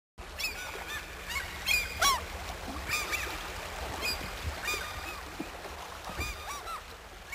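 A flock of birds calling, many short arching calls overlapping one after another, over a low steady rumble.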